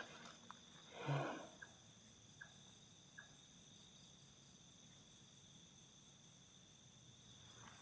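Faint steady chirring of night insects such as crickets in several high tones, without a break. A short rustle comes about a second in, followed by a few faint clicks.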